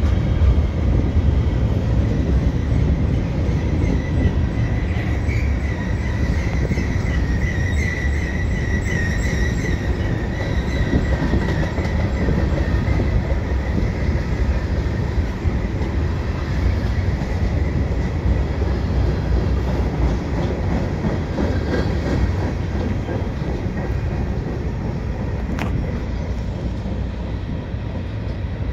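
Norfolk Southern mixed freight train's cars rolling past: a steady rumble of wheels on rail, with a high, wavering wheel squeal from about four seconds in until about eleven. The rumble eases a little near the end.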